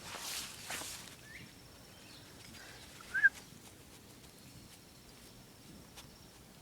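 Quiet outdoor background with a couple of short bird chirps, one faint and one sharp and loud about three seconds in. A brief rustle comes in the first second.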